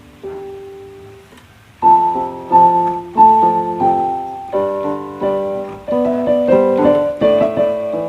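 Background piano music: a few soft notes, then from about two seconds in a louder melody of struck notes that each ring and fade.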